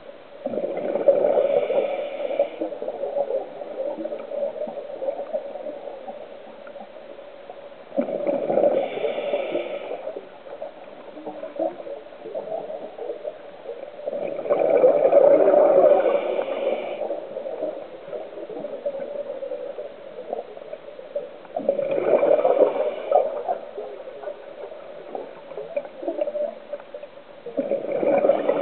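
A scuba diver's exhaled breath bubbling out of the regulator underwater: five bursts of bubbles a couple of seconds long, one every six to seven seconds with each breath, over a steady low hum.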